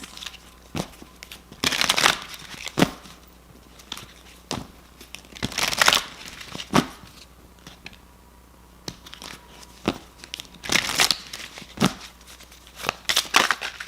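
A deck of oracle cards being shuffled and handled: several short bursts of cards rustling and flicking, with sharp clicks in between.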